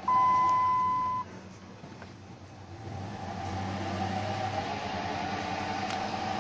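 A single electronic chime beep from the Dodge Ram's instrument cluster, held about a second, right at the start. After it, the truck's 5.9-litre V8 runs with a steady low hum that grows louder about halfway through.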